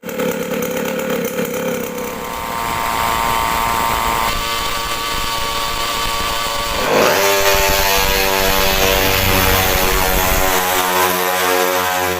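Small 50cc engine on a motorised drag bicycle running and revving, its pitch shifting, with the revs dropping sharply and climbing again about seven seconds in.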